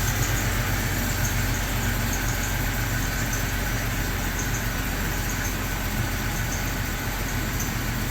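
Freshly rebuilt Jeep Cherokee XJ engine idling steadily.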